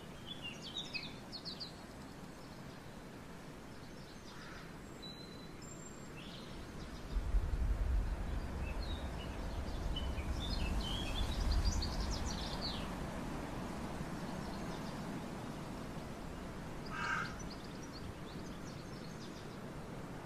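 Small birds chirping in short calls now and then over a steady outdoor hiss, with a low rumble for several seconds in the middle.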